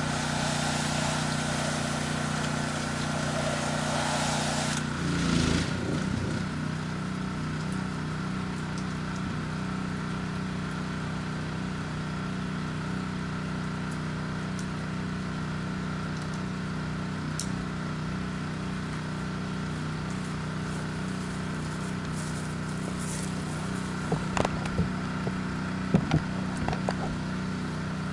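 An engine running at a steady, unchanging speed, with a hiss over it for the first few seconds and a few sharp knocks near the end.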